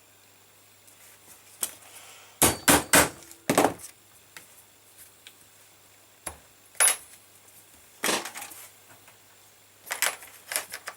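Sharp knocks with a metallic clink as a mallet strikes a pricking iron to punch stitching holes in leather; a quick run of loud strikes about three seconds in, then single and paired strikes spread through the rest.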